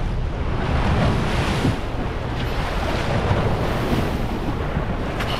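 Wind buffeting the microphone over water rushing and splashing along the side of a boat under way at speed.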